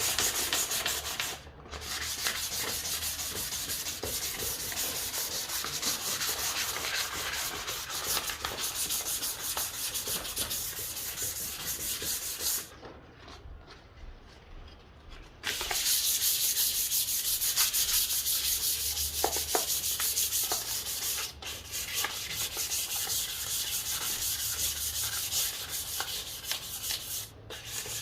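Sandpaper rubbing over a wooden fruit bowl of ipê hardwood in a steady hiss. It stops briefly a few times and goes quieter for a couple of seconds about halfway through.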